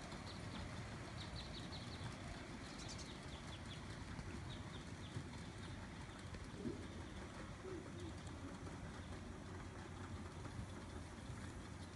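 Quiet outdoor ambience with a low steady background noise. Small birds chirp in short bursts in the first few seconds and again around five seconds in, and a dove coos faintly around the middle.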